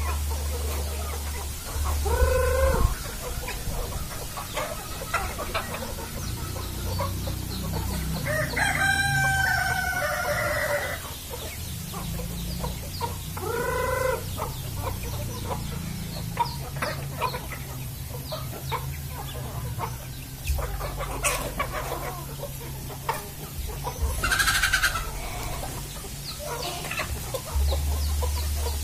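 Flock of free-range village chickens (ayam kampung) clucking, with a rooster crowing once about nine seconds in and short calls around two and fourteen seconds.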